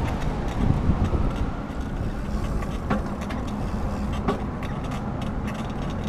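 Riding noise of a bicycle heard from a handlebar-mounted camera: a steady rush from the tyres on pavement and air over the microphone, with two sharp clicks about three and four seconds in.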